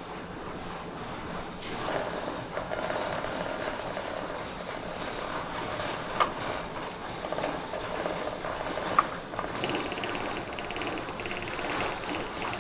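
Metal serving tongs and an ice-cream scoop handling food at a buffet counter, with sharp clinks against china plates, two standing out about six and nine seconds in, over steady room noise.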